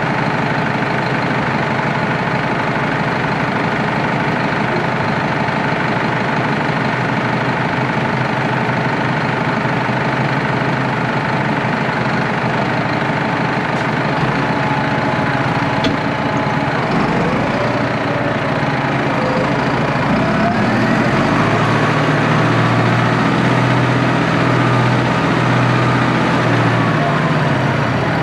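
Tractor diesel engine running steadily. About two-thirds of the way through, the engine note shifts up and down and grows a little louder and deeper as the revs change.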